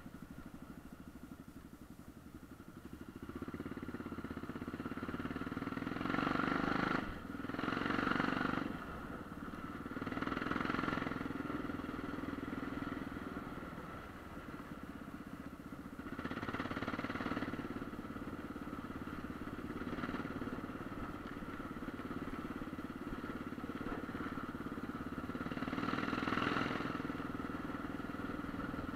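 Dirt bike engine running on the move, low for the first few seconds, then rising and easing off again and again as the throttle opens and closes, with a brief drop about seven seconds in.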